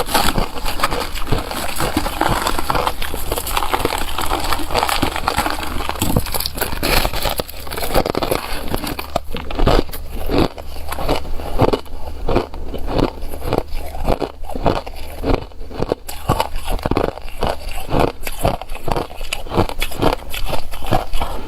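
Hard shaved ice and crushed ice being bitten and chewed close to the microphone: loud, crunchy and squeaky. For the first several seconds the crunching is dense, then it settles into steady chewing crunches about two a second.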